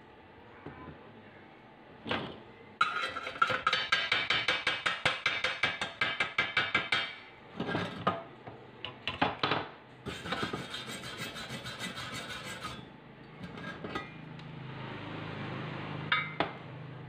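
Chipping hammer striking rapidly on a stick weld in thin-walled steel box tube, about six strikes a second, knocking the slag off the weld. A few separate knocks follow, then the scratchy scrubbing of a steel wire brush cleaning the joint.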